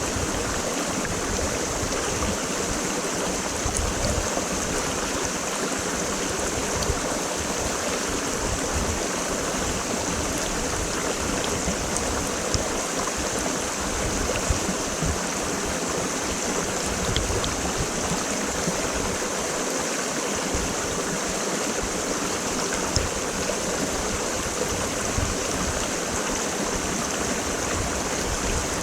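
Creek water flowing steadily, an even rushing with brief splashes standing out now and then.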